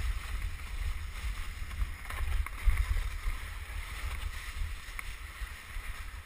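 Wooden krňačka sledge sliding down a snowy track: a steady hiss of the runners and steering pole scraping through the snow, under a gusting rumble of wind buffeting the helmet-mounted microphone.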